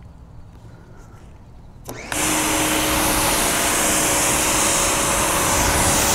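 Active 2.0 electric pressure washer spraying water through a 40-degree nozzle: about two seconds in, the trigger is pulled and a loud, steady hiss of spray starts suddenly and holds, with a faint steady hum underneath.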